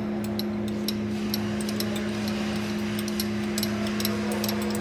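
Milling machine running with a steady hum and a slightly pulsing low rumble while its cutter mills a keyway into a shaft. Irregular sharp metallic ticks and clinks come from the cut.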